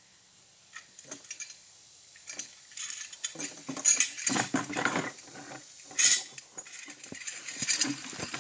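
Metal zipline hardware, a pulley and carabiner on the cable, clinking and rattling as it is handled, mixed with rustling and steps through undergrowth. The clatter is irregular and grows louder, with the sharpest clinks about four and six seconds in.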